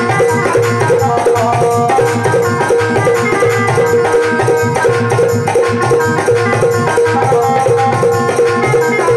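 Instrumental interlude of a Rajasthani folk bhajan: a dholak beats a steady rhythm under harmonium and electronic keyboard playing the melody over a held drone note.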